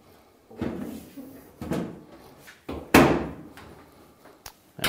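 Steel top panel of a GE dryer being slid and pressed back onto the cabinet: a scraping shuffle, then one loud metal clunk about three seconds in as the top drops into place, and a couple of light clicks near the end.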